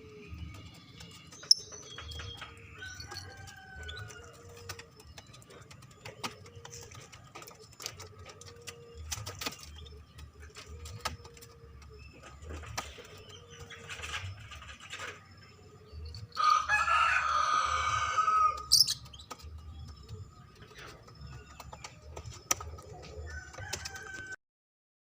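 Bird calls: faint scattered chirps and clicks, then one loud harsh call lasting about two seconds about two-thirds of the way through.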